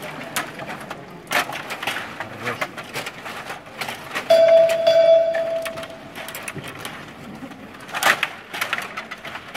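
Stiga table hockey game in play: rapid plastic clicks and clacks of the rods, players and puck, with a sharp cluster of knocks near the end. A steady held tone sounds for about two seconds in the middle.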